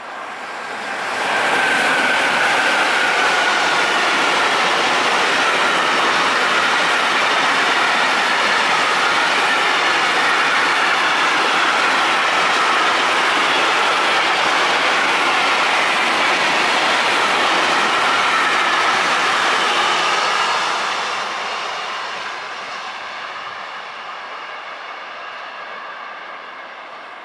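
Intermodal freight train, double-headed by two E189 (Siemens ES64F4) electric locomotives, passing close by: a steady loud rush of wheels and wagons with clickety-clack and a wavering high squeal from the wheels. It fades away over the last several seconds as the tail of the train draws off.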